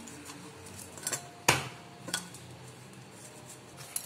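Soft maida dough being kneaded by hand in a stainless steel bowl: quiet pressing and rubbing, with a few clinks against the steel and a sharp knock about a second and a half in.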